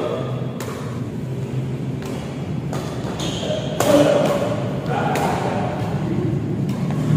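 Badminton rackets striking the shuttlecock during a doubles rally: a series of sharp hits about a second apart, with players' footfalls on the court.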